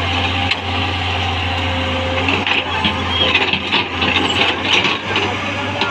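L&T-Komatsu PC200 hydraulic excavator's diesel engine running steadily under load. From about two seconds in, irregular scraping and clattering of the bucket digging into dirt and stones.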